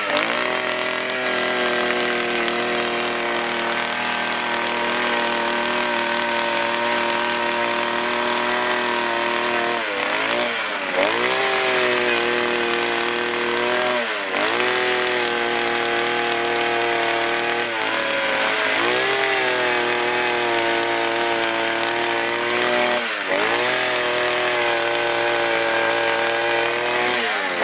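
Handheld 52 cc two-stroke petrol earth auger running at high speed while boring holes in soil. Its engine pitch dips and recovers several times, roughly every four seconds in the second half.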